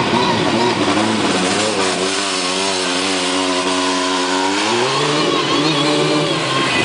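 Formula Student race car's engine driving and changing speed: the pitch drops about two seconds in, holds low and steady, then rises sharply near the five-second mark as the car accelerates away.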